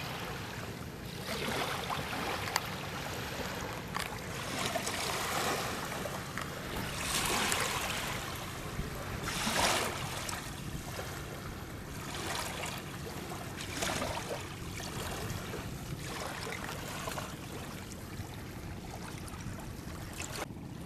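River water splashing and rushing around a boat in irregular surges, over a steady low hum.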